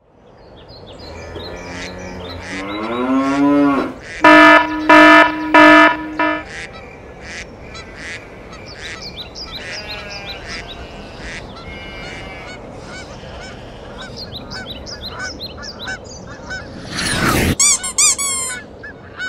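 Cartoon sound effects: a rising pitched slide, then three loud honks, the last held longer, followed by scattered short chirps and blips. A sweeping whoosh comes near the end, then a quick run of chirps.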